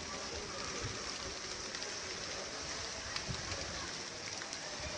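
Rain falling at the start of a shower: a steady hiss of rain with scattered sharp drop ticks.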